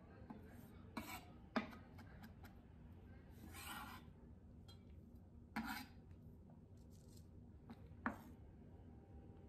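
Faint chef's knife work on a wooden cutting board while chopping parsley: a few scattered sharp knocks of the blade on the board and a longer scrape of about half a second near the middle.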